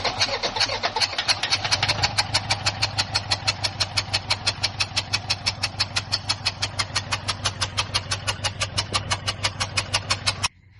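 Common rail diesel engine with a steady, rhythmic clatter of about six sharp knocks a second over a low hum, cutting off abruptly near the end.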